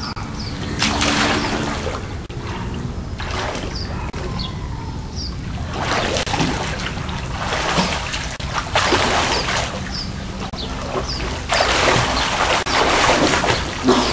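Water splashing and sloshing in a swimming pool, in several irregular bursts.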